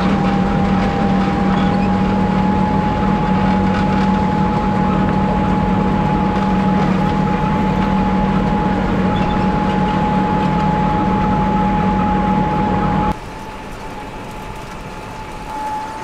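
John Deere 6130R tractor and trailed potato harvester at work, lifting soil and potatoes: loud, steady machinery noise with a low hum and a constant whine. About 13 seconds in it drops to the quieter hum heard inside the tractor cab.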